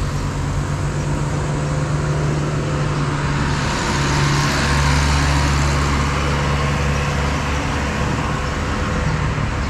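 Road traffic: a motor vehicle's engine droning steadily nearby, with road noise.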